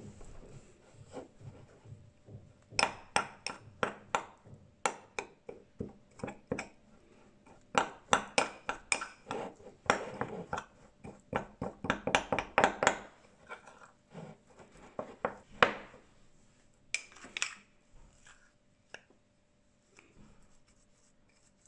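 Metal spoon stirring a thick paste in a small ceramic bowl, clinking and scraping against the bowl's sides in quick irregular runs of taps with short pauses between them.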